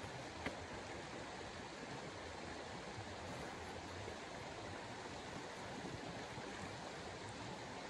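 Steady rushing background noise, with a single sharp click about half a second in.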